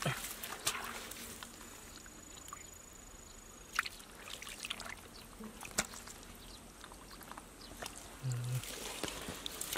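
Hands splashing and squelching through a shallow muddy puddle while groping for fish, with small scattered splashes and clicks of water and mud.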